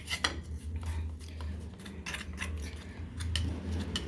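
A metal spoon stirring and scraping in a small bowl, mixing powder into honey, with short irregular clicks where it knocks the bowl. A steady low hum runs underneath.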